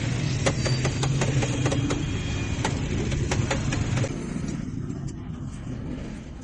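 A steady low engine hum that fades after about four seconds, with frequent sharp clinks of a metal spoon against steel bowls and trays.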